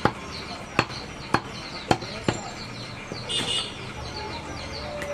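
A large curved butcher's cleaver chopping goat meat on a wooden log chopping block: five sharp chops about half a second apart in the first two and a half seconds.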